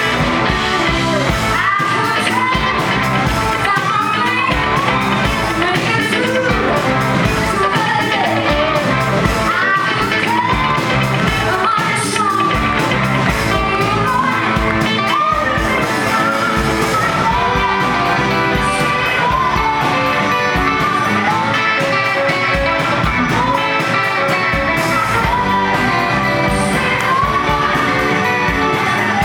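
Live rock band playing loud, with a woman singing lead over electric guitars, bass, drums and keyboard.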